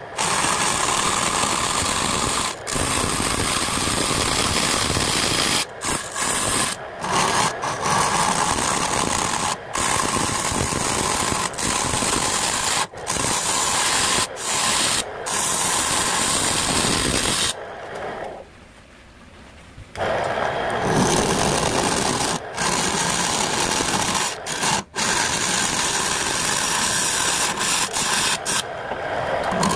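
Hand-held turning tool cutting the face of a spinning jackfruit-wood dish on a lathe: a steady scraping hiss, broken by many brief gaps as the tool lifts off the wood. The cutting stops for a couple of seconds past the middle, then resumes.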